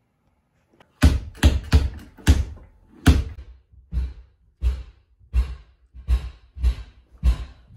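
A rapid series of heavy thuds or knocks, about two to three a second, starting about a second in.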